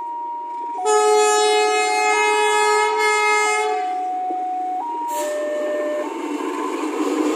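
Diesel locomotive air horns sounding a string of notes that change pitch in steps. A loud multi-note chord is held from about one second in to nearly four seconds in, then single notes follow. A low rumble comes in near the end.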